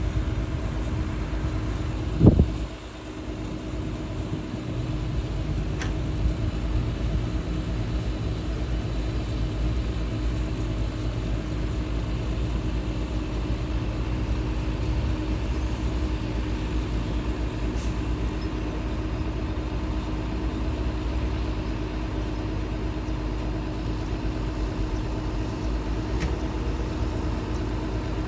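Heavy diesel engine running steadily, with one loud, short bang about two seconds in.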